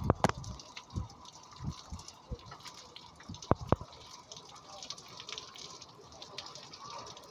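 Heavy rain with drips and splashes landing close by: several sharp drips in the first four seconds, then a steady hiss of falling rain.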